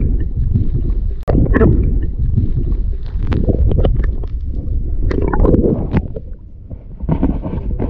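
Muffled rumbling and sloshing of seawater heard through a submerged camera, coming in irregular surges.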